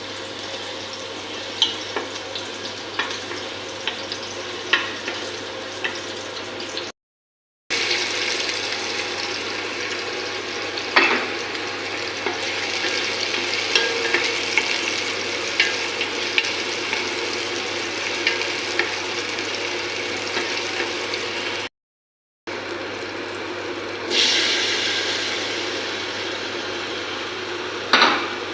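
Food sizzling in a hot frying pan, with a cooking utensil clicking and scraping against the pan now and then. The sizzle is broken twice by short silent gaps and swells suddenly near the end.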